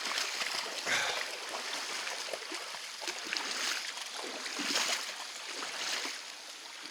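Feet wading and splashing through a shallow flowing creek, over the steady rush of the moving water, with two louder splashy surges, about a second in and a little before the end.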